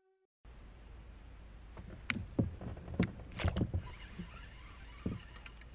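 Small irregular knocks and clicks of gear being handled aboard a fishing kayak, over a steady low hiss of outdoor background.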